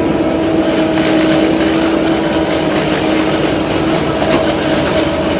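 Farm harvesting machinery running steadily: an engine drone with a constant pitched hum and a continuous fine clatter.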